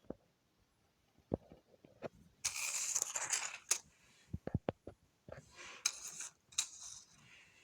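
Tablet packaging being handled: a scatter of small clicks and taps, with two stretches of crinkling rustle, about two and a half and five and a half seconds in.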